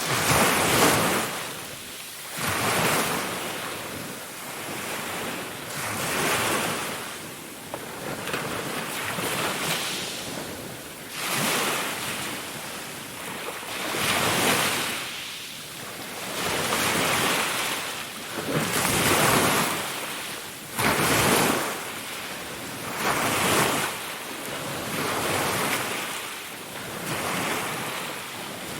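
Ocean waves breaking on a shore: a wash of surf that swells and fades about every two to four seconds.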